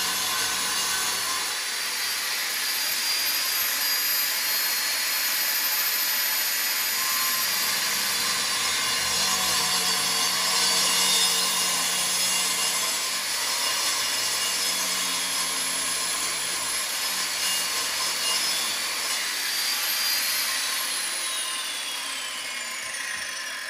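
Angle grinder with a cutting disc running and cutting into ceramic wall tile, a steady high whine over a grinding rasp. Near the end the cutting stops and the motor spins down, its whine falling in pitch.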